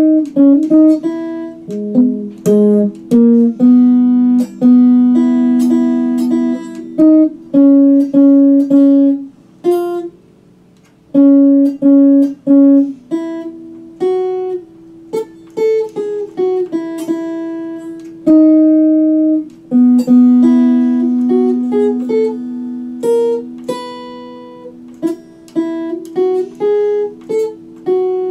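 White Ibanez electric guitar played as a slow single-note melody. Plucked notes ring out, some held for a second or two, with a short break about ten seconds in.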